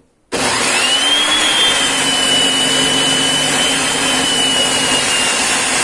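Bosch GTS 254 table saw switched on about a third of a second in: the motor and blade spin up with a quickly rising whine, then run at full speed with a steady high whine over a loud rushing noise. The whine dips slightly about five seconds in.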